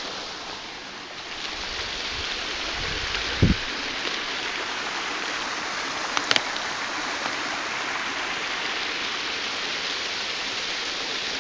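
Small woodland waterfall splashing steadily. A brief low thump comes about three and a half seconds in, and a couple of sharp clicks a few seconds later.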